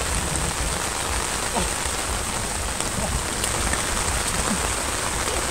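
Steady rain falling, with a constant low rumble underneath.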